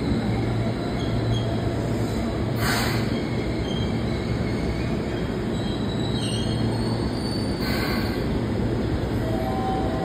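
Seibu electric commuter train pulling into a station platform: steady rumble of wheels and running gear with faint brake squeals, and two short hisses about three and eight seconds in.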